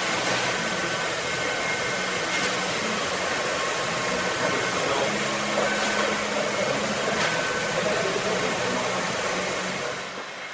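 A small electric motor or blower running steadily, with an airy whir, a low hum and a faint high tone that comes and goes.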